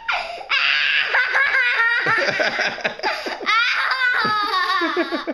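A child laughing hard: a high squeal that falls in pitch, then a long run of quick, high-pitched laughs that dies away near the end.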